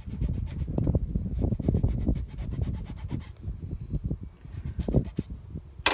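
Oversized plastic push-in clip on an electric motor mount's wiring-harness connector being forced into a hole in the factory bracket: spells of rapid rasping and scraping of plastic, with handling noise. The clip is too big for the hole and goes in only with hard pushing.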